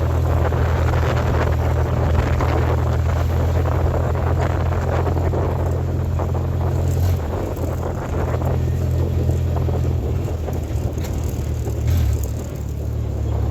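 A 1956 Willys Jeep CJ5's four-cylinder engine running under way, a steady low drone beneath heavy wind noise on the microphone. The engine note shifts about seven seconds in and dips briefly near the end.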